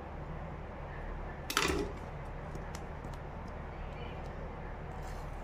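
A kitchen knife slices through the seal of a cardboard smartphone box in one short, sharp rasp about a second and a half in, followed by faint clicks of fingers handling the box. A steady low hum runs underneath.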